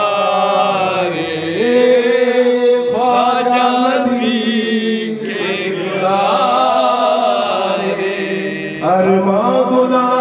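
A man singing a naat, a devotional Urdu song, into a handheld microphone. He holds out long, wavering notes in phrases, taking short breaths between them.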